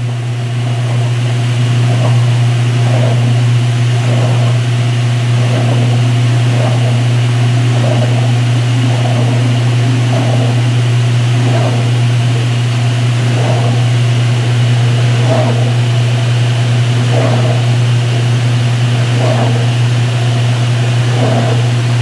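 Belt-driven 2016 Speed Queen top-load washer in high-speed spin, the tub speeding up: a loud, steady motor hum with water from the towels spraying against the metal outer tub in soft recurring swishes every second or two.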